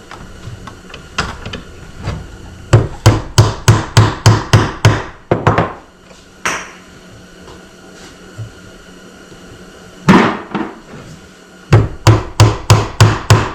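Hammer driving small fascia nails into a wooden board: a quick run of about nine taps, a single harder strike, then another quick run of about eight taps.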